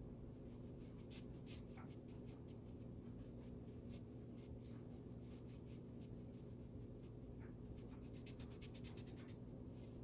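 Paintbrush bristles dragging paint across a bare wooden side panel: faint, scratchy brush strokes, coming in a quick run of short strokes near the end, over a steady low hum.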